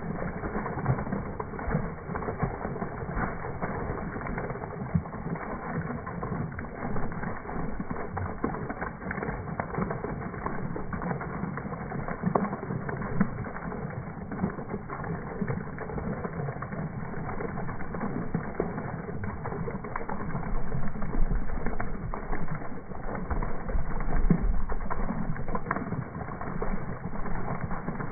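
A jet of water pouring steadily into a plastic tub of water, splashing continuously, somewhat louder for a few seconds past the middle.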